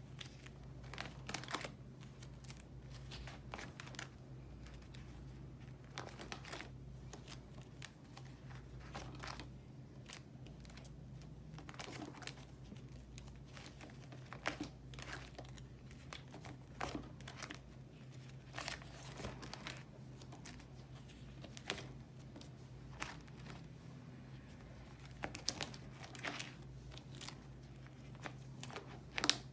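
Clear plastic sleeve pages of a ring binder crinkling and rustling as they are turned and handled, in scattered short rustles with a sharper click near the end. A steady low hum underneath.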